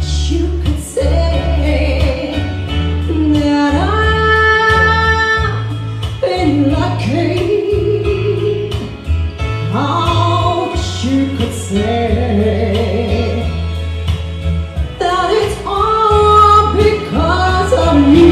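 A woman singing into a hand-held microphone, holding long notes and sliding up into them, over backing music with a steady bass line.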